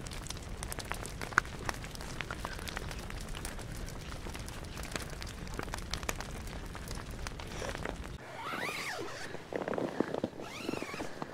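Campfire crackling with scattered sharp pops over a low rumble. About eight seconds in the rumble stops and a few short sounds slide up and down in pitch.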